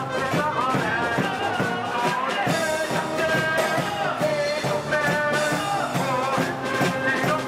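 Cheering-section band music: a cheer song played with melody instruments over a steady drum beat, with some singing.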